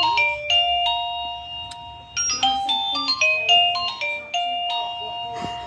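Electronic doorbell chime playing a melody. Quick electronic notes run through a tune, with a long held note about a second in and another near the end.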